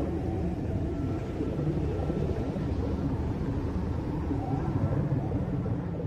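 Steady low rumbling drone with a few faint held tones above it.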